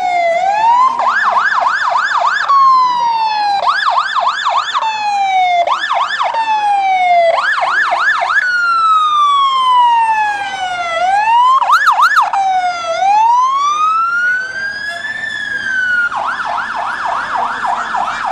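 Fire engine's electronic siren cycling between modes: a slow wail falling in pitch over a second or two, alternating with bursts of a fast yelp, and near the end a slow rise and fall before the fast yelp returns.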